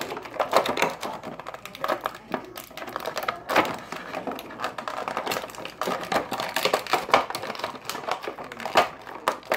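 A clear plastic action-figure packaging tray being handled, flexed and tilted, giving a run of irregular crackling clicks and taps.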